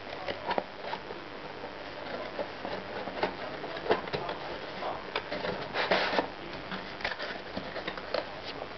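Cardboard box being handled and turned: irregular light taps, scrapes and rustles of a hand on the box, with a louder scrape about six seconds in.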